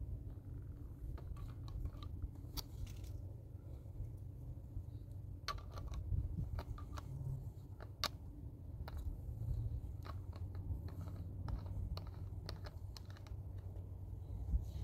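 Scattered small clicks and crunches of two young children handling a plastic drink bottle and cup and nibbling a snack, over a steady low rumble.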